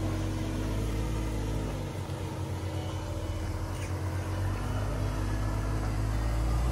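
Jeep Cherokee XJ engine running steadily at low revs as the Jeep crawls slowly up a rocky trail.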